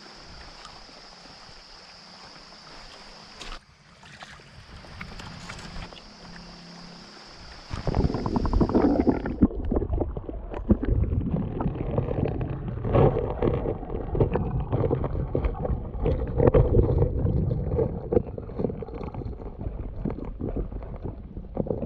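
Stream water heard first above the surface as a soft rush, then from about eight seconds in heard underwater: a much louder churning gurgle of the current against the submerged microphone.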